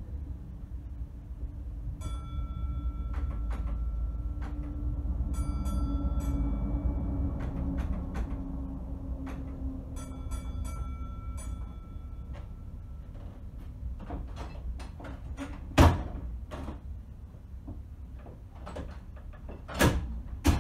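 Signal box block bells rung in short codes of several strokes, three times, each ringing on briefly, over the low rumble of a train just outside. In the last third, a string of clicks and knocks with two loud clunks as levers are pulled over in the mechanical lever frame.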